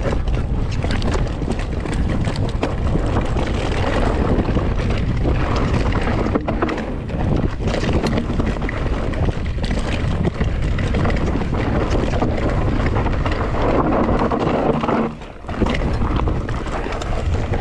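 Mountain bike ridden fast down a rough enduro trail: wind rushing over the camera microphone, tyre noise and many small knocks and rattles from the bike, with the noise dropping briefly about fifteen seconds in.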